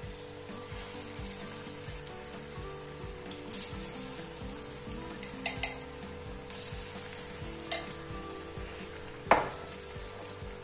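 Bottle-gourd and potato kofte deep-frying in hot oil in a steel kadai, the oil sizzling and bubbling steadily. A few sharp clicks come through, the loudest about nine seconds in.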